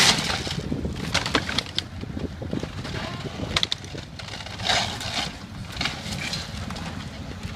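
A building being demolished: timber cracking and splintering in a series of irregular sharp cracks and crunches, loudest at the very start, over a steady low rumble.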